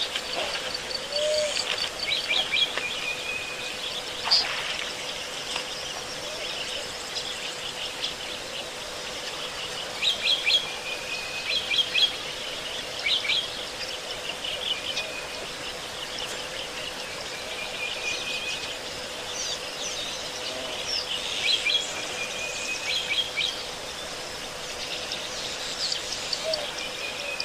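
Wild birds calling, with short bursts of rapid high chirps every few seconds over a faint steady tone.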